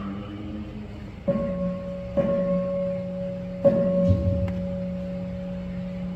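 Buddhist temple bowl bell struck three times, two strokes about a second apart and a third after a longer gap, each ringing on in a steady hum. In the rite the bell strokes signal the worshippers to kneel and bow.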